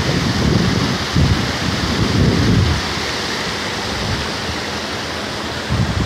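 Floodwater rushing in a loud, steady torrent from a burst pump at a city water-supply station, with irregular low rumbles over it.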